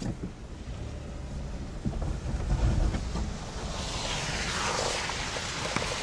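Car cabin road noise while driving slowly over a wet, slushy street: a steady low rumble with wind buffeting the microphone. About four seconds in, a hiss swells and then eases off.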